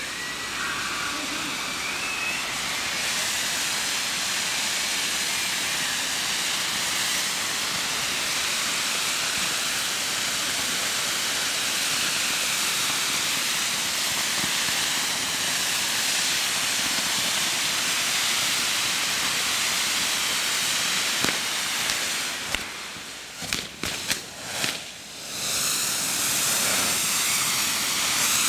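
Gunpowder firework fountains on a correfoc fire-dragon figure burning, a continuous loud hissing rush. About three-quarters through it briefly dips, with a few sharp cracks, then comes back at full strength.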